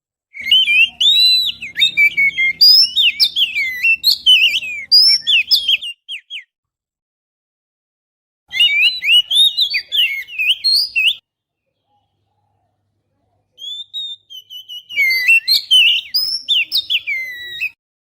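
Oriental magpie-robin (kacer) song: rapid, varied whistled phrases in three bursts of about three to six seconds, with dead silence between them.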